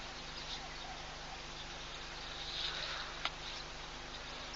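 Outdoor waterhole ambience picked up by a live wildlife camera's microphone: a steady hiss over a faint low hum. A brief swell of noise comes about two and a half seconds in, followed by one sharp click.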